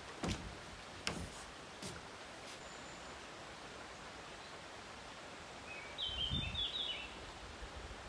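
Quiet outdoor ambience with a few light clicks in the first couple of seconds, then a short bird call of several high chirps about six seconds in.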